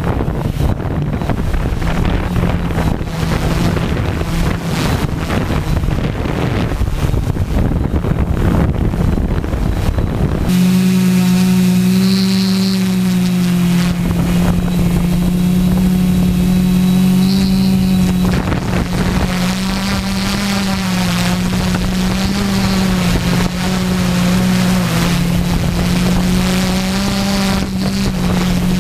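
Six-rotor multicopter's electric motors and propellers humming steadily, heard up close from on board. Wind buffets the microphone for the first third, then the hum comes through clear, its pitch wavering up and down in the second half.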